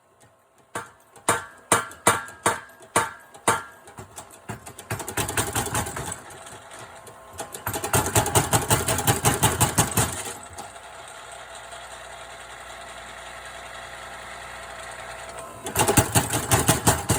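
Tire-driven power hammer run by a 3 hp single-phase electric motor: the ram strikes in single blows about twice a second at first, then in fast runs of hammering blows, with the motor humming steadily while the ram sits idle between runs.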